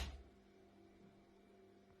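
Near silence with a faint steady hum, opening with the fading tail of a loud sudden knock that dies away within the first few tenths of a second.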